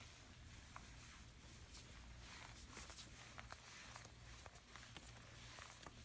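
Near silence: faint room hiss and low hum, with a few soft scattered clicks.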